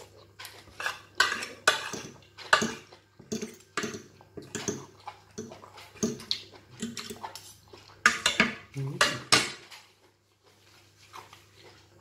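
Metal fork and spoon scraping and clinking on a ceramic plate as the last food is scooped up, in many quick strokes. Close-up chewing and mouth sounds come between the scrapes.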